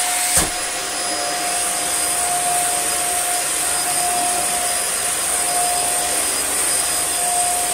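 Dyson Small Ball upright vacuum cleaner running with a steady whine. Its suction is working but its brushroll is dead and not turning. There is a single knock about half a second in.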